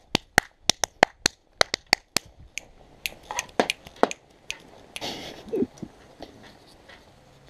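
About a dozen sharp clicks or snaps in quick succession over the first two seconds. They are followed by a few scattered knocks, then a short rustle as riding gloves are handled.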